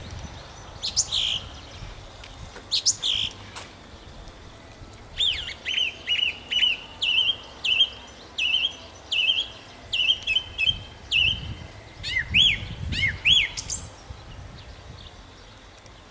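Nightingale singing: a couple of short phrases, then a long series of repeated clear whistled notes, about two a second, lasting some six seconds, then a few sweeping notes before a pause near the end.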